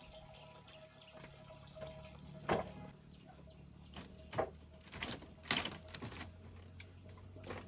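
Bare feet stepping on a split-bamboo floor: about six irregular knocks and creaks of the bamboo slats, the loudest about two and a half and five and a half seconds in.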